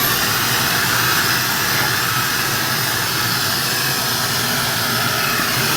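Vacuum cleaner running steadily at full speed, sucking up wood dust and chips from a freshly drilled doorknob hole in a door.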